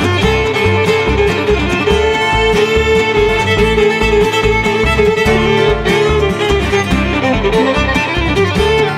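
Bluegrass band music: a fiddle draws out long held melody notes over picked acoustic guitar and a steady low bass pulse about twice a second.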